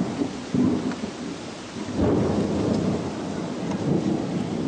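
Severe-storm noise: a rumbling haze of wind and rain, surging louder at the start and again about two seconds in.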